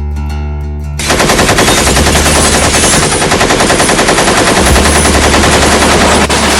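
Machine gun firing one long, continuous rapid burst that starts about a second in, over background music with a bass line.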